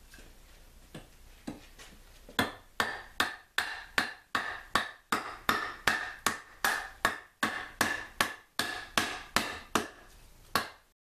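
Small hatchet chopping into the edge of an upright oak board, roughing out an axe handle blank. A few light taps, then steady strikes about two or three a second, each with a brief ring.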